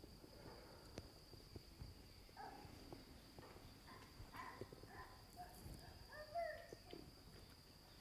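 Near silence: room tone with a faint steady high whine, and a few faint rustles and light knocks.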